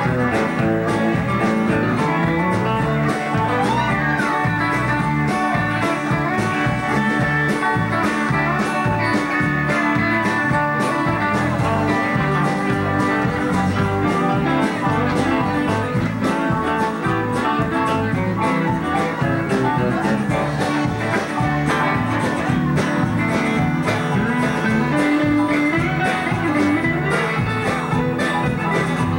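Live country band playing an instrumental passage: a strummed acoustic guitar together with electric guitars, at a steady beat.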